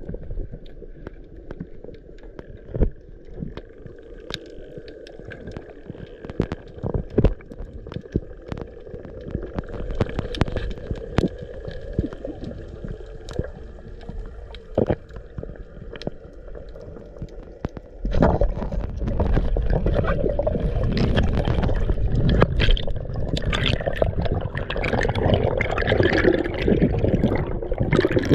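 Underwater sound heard through an action camera's housing: scattered sharp clicks and crackles over a low water hiss, then about eighteen seconds in a sudden louder, continuous rush of water and bubbles.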